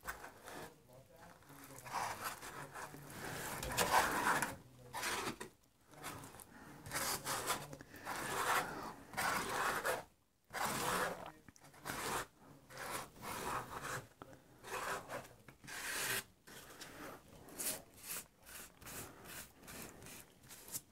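Gloved hand smearing and pressing wet paper-pulp modeling clay (Celluclay) onto foam scenery, in a series of irregular rubbing, scraping strokes.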